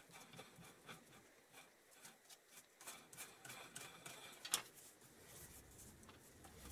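Faint metallic clicks and scraping from a puller being turned by hand in the alternator rotor of a Kawasaki KZ650 engine, with one sharper click about four and a half seconds in.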